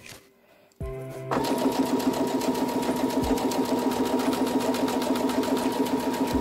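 Electric domestic sewing machine stitching a zipper with its zipper foot: after a near-silent pause it starts up about a second in and runs steadily at an even speed.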